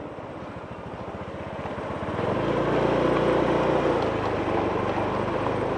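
A motor vehicle engine running. It is quiet at first, grows louder about two seconds in, then holds steady.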